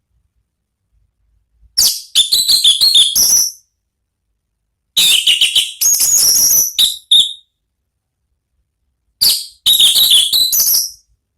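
Orange-headed thrush (anis merah) singing its clear, full 'ngeplong' song: three loud phrases of rapid, high warbled notes, each about two seconds long, separated by pauses of a second or two.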